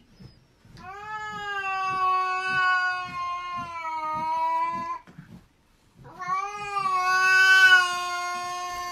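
A cat yowling at another cat: two long, drawn-out calls, the first about four seconds and the second about three, with a short pause between, each held at nearly one pitch.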